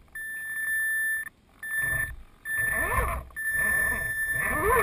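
Electric RC crawler's motor and speed controller whining. A steady high tone starts and stops about four times, with the motor's pitch sweeping up and down as the throttle is worked.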